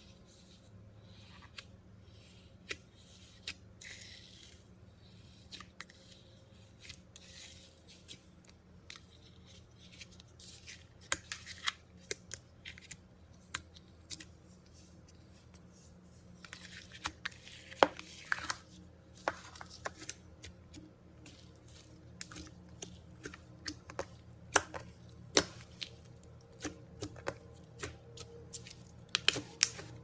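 Glitter slime being pressed and poked by hand, giving irregular sharp clicks and pops that come thicker in the second half, with a few brief soft squishing rustles.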